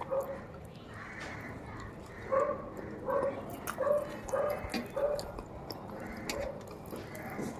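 Short animal calls, about seven of them, coming every half second to a second, with faint clicks and rustles of bread being torn and chewed underneath.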